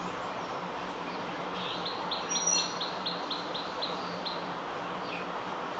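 A small bird chirping in the background: a quick run of about ten short high chirps lasting nearly three seconds, over a steady hiss and faint hum.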